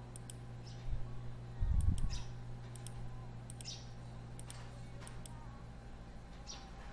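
A few sharp computer mouse clicks over a steady low hum, with dull low thumps about one and two seconds in.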